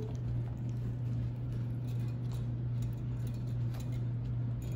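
Guinea pigs nibbling a raspberry held at the cage bars: faint, irregular little clicks of chewing, over a steady low hum.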